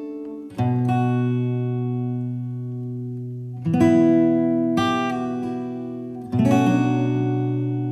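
Background music: slow acoustic guitar chords, strummed four times and each left to ring out and fade.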